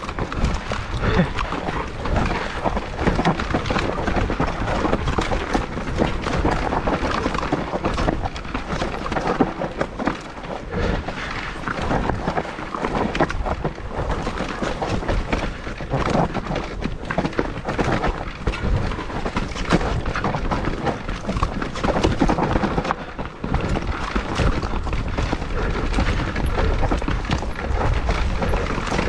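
Mountain bike riding down a rough trail: tyres on dirt and rock and the bike rattling and knocking over the bumps, with wind buffeting the microphone.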